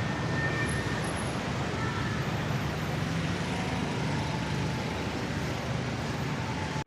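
Steady city road traffic: a constant rumble of car and bus engines and tyres, with a few faint high tones over it. It drops away abruptly at the very end.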